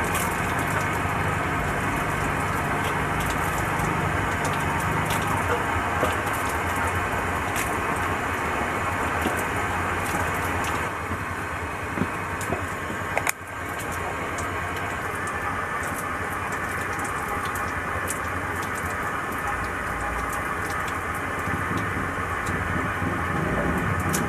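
Air injector and mixer running in a water tank: a steady motor hum over a constant hiss, with scattered crackling clicks throughout. The sound drops slightly about eleven seconds in, with one sharp click a couple of seconds later.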